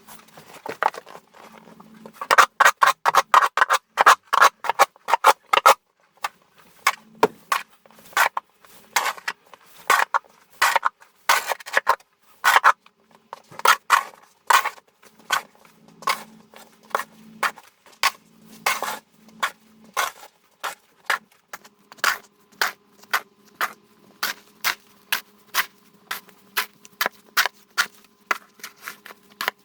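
Snow and ice being scraped off a car: a run of rapid scraping strokes, about three a second, then slower, uneven strokes, over a faint steady hum.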